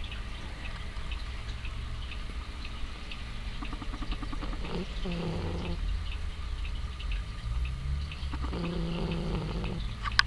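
Domestic cat snoring in its sleep: two buzzy, pitched snoring breaths, one about halfway through and one near the end, each lasting a second or two.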